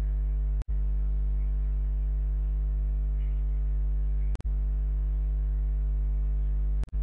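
Steady electrical mains hum with a stack of overtones in the recording's audio line. It cuts out for an instant about half a second in, again after about four and a half seconds, and near the end.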